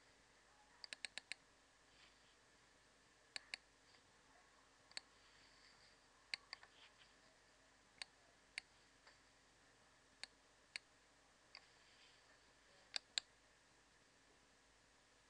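Computer mouse buttons clicking: scattered single clicks and quick double-clicks, about fifteen in all, over a near-silent room.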